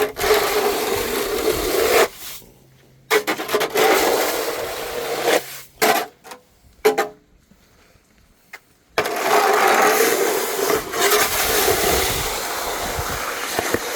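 Snow shovel scraping along a snow-covered walkway in three long pushes, with short pauses between them.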